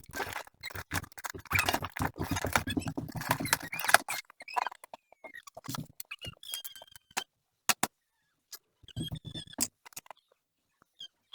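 Cardboard box and packaging being handled and opened: rustling, scraping and sharp clicks, busy for about the first four seconds, then scattered taps and squeaks with a short flurry near the end.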